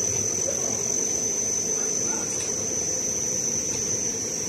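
Steady high-pitched electrical whine over a low hum from a light roll cutting machine's speed-controller drives and motor, unchanging while the speed controllers are adjusted.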